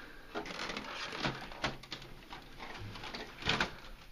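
Clicks, knocks and creaks of a plastic desktop computer case as its release buttons are pressed and the accordion-style case is swung open. There are several sharp clacks, the loudest about three and a half seconds in.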